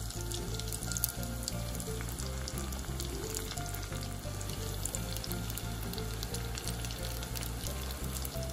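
Sardine spring rolls deep-frying in hot oil: a steady sizzle with fine crackling as the oil bubbles around them. Background music with a steady low beat plays underneath.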